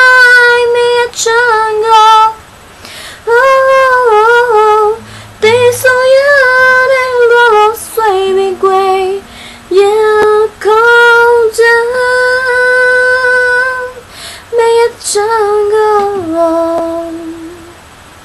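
A high-pitched voice singing long drawn-out notes that waver and slide in pitch, in phrases broken by short pauses; about sixteen seconds in it drops to a lower held note and fades.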